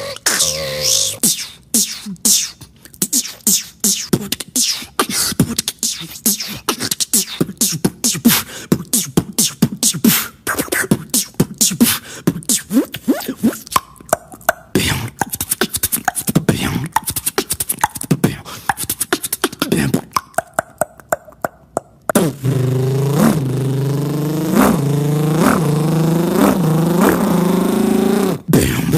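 Beatboxer's vocal percussion: a fast, dense run of mouth clicks and drum-like hits. About 22 seconds in it gives way to a held, buzzing pitched vocal tone that wobbles in pitch roughly once a second.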